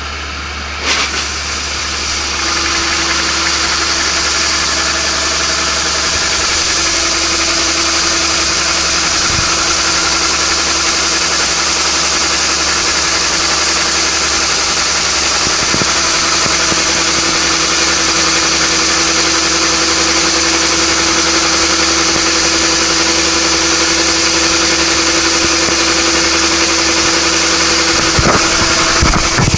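Kubota ANR460 combine running with its unloading auger turning, and harvested paddy rice pouring from the auger spout onto a growing pile in a truck bed with a steady hiss. A knock about a second in, then the sound grows louder over the next couple of seconds and holds steady.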